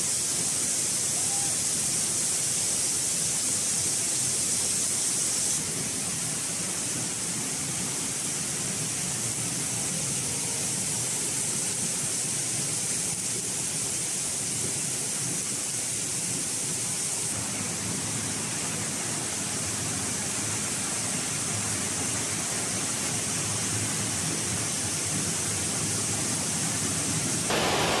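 A waterfall heard up close from behind its falling curtain: a steady hiss and rush of falling water and spray, dropping slightly in level about five and a half seconds in.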